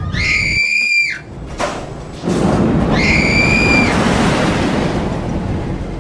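Roller coaster riders screaming: two high, drawn-out cries about a second long, one at the start and one about three seconds in, each dropping in pitch as it ends. Under them runs the rushing noise of the moving ride, which grows louder about two seconds in and eases off near the end.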